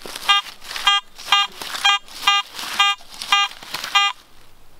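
Garrett AT Gold metal detector sounding its target tone: a short buzzy beep, about two a second and eight in all, as the coil is swept back and forth over a buried target. The steady, repeatable beeps on each pass, with a target ID of 63, mark a good signal worth digging.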